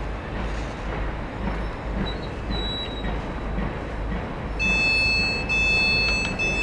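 Door-closing warning beeps from an electric multiple unit standing at the platform with its doors open: three long, high beeps in a row, starting about four and a half seconds in, over the steady hum of the stationary train.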